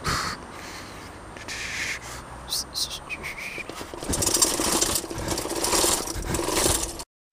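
Bicycle rolling over paving stones and then bumping down a flight of stone steps, picked up by a helmet-mounted camera: a rough rumble that turns into a louder, juddering clatter about four seconds in, cutting off abruptly near the end.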